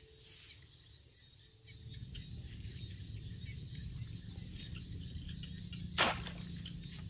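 A bamboo plunge basket is thrust down into shallow, muddy rice-field water, making one sharp splash about six seconds in, over a low steady rumble.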